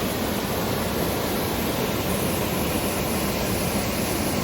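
A waterfall's steady, even roar of falling water.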